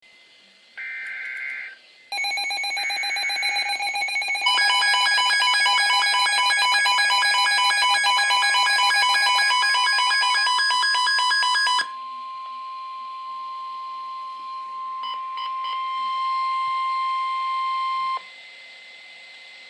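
Emergency Alert System attention signals for a flood warning. Two short data bursts come first, then rapid electronic alarm beeping over the steady weather-radio warning tone. The beeping stops about 12 seconds in, and the tone runs on alone until it cuts off about 18 seconds in.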